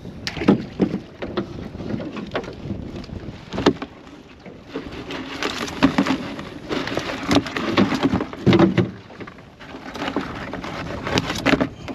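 Irregular knocks, taps and scraping clatter as mud crabs are handled and sorted out of a crab pot on a boat, with stretches of rushing noise around the middle and again near the end.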